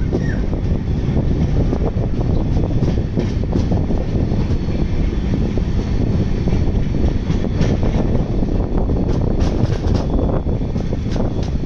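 Passenger train running, heard from the open doorway of a moving coach: a steady rumble of wheels on rail with scattered short clicks and knocks.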